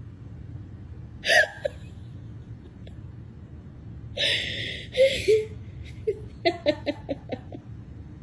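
Stifled laughter: a sharp breathy snort about a second in, two more breathy bursts around four to five seconds in, then a quick run of short giggles, about six in a row, near the end. A steady low car-cabin road rumble runs underneath.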